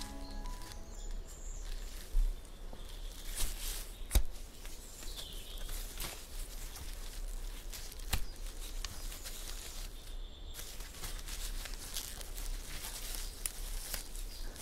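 Footsteps and rustling through forest undergrowth, with a few sharp clicks along the way. A short bit of music ends about a second in.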